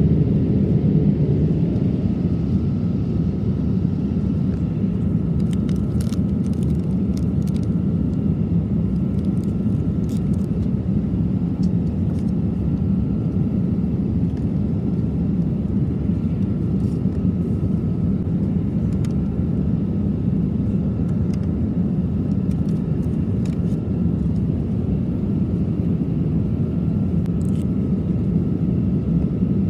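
Steady low cabin noise of a Boeing 787-8 airliner in cruise flight, with a few faint clicks here and there.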